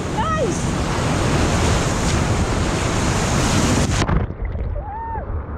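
Whitewater of a big river rapid rushing loudly around a raft, with wind on the microphone. About four seconds in, a wave splashes over the boat and the sound suddenly goes muffled as water covers the camera.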